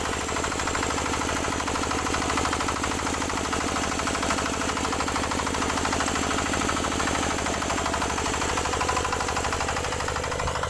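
Homemade walking power cultivator's single-cylinder engine running steadily with an even, rapid beat, under load as its tines till hard ground.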